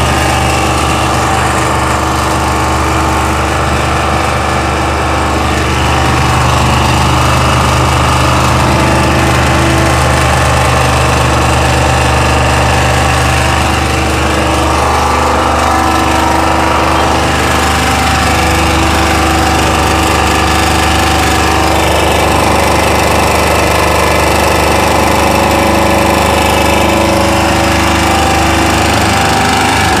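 Chinese-made 2000-watt open-frame portable generator running steadily at constant speed, making a strange noise.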